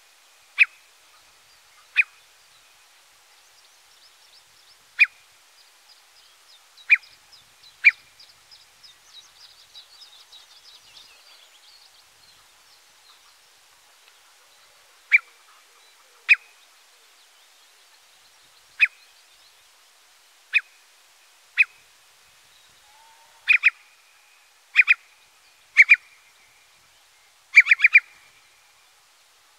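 Eurasian curlew giving short, sharp calls every second or few, single notes at first, then pairs, and a quick run of three or four near the end: a parent bird keeping watch over its chicks. A fainter high twittering from a small bird comes in about a third of the way through.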